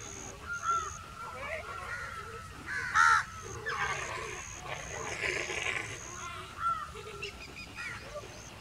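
A pack of dholes feeding on a sambar deer carcass, giving short high squealing calls off and on, the loudest about three seconds in.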